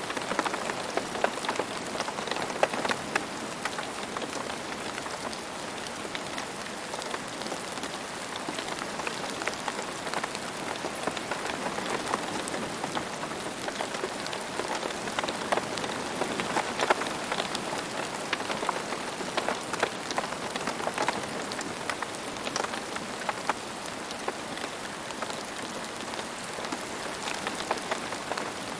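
Steady rain falling on a hard surface, with many individual drops pattering close by.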